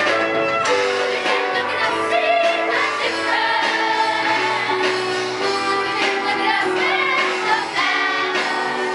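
Live musical-theatre number: instrumental accompaniment with voices singing over it.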